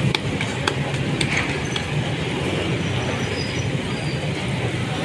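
Katlamma flatbreads deep-frying in a wide pan of hot oil, a steady sizzle over a constant low rumble, with a few light clicks in the first second.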